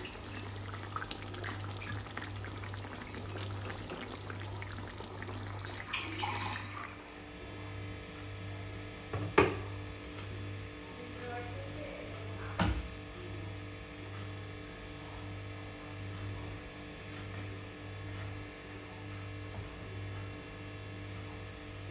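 Fish curry simmering and crackling in a pan for the first several seconds, then quieter, with a low steady hum and two sharp knocks of the serving spatula, the louder one first and the second about three seconds later, as the fish is lifted out.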